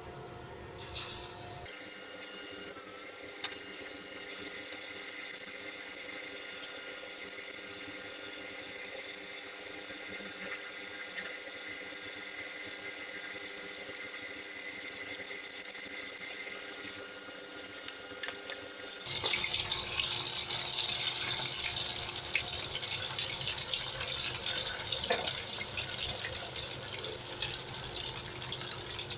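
Battered onion rings deep-frying in hot oil: a steady crackling sizzle that sets in about two seconds in and turns suddenly louder and hissier about two-thirds of the way through.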